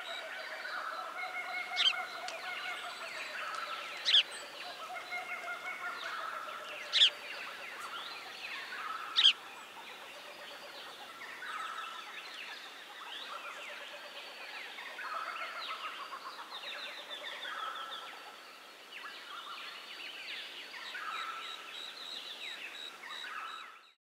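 A dense chorus of small birds chirping and twittering, with four sharp, loud chirps in the first ten seconds. It fades out at the very end.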